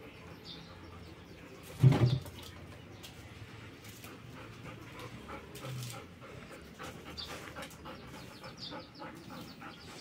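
Golden retriever panting, with one short, loud sound about two seconds in.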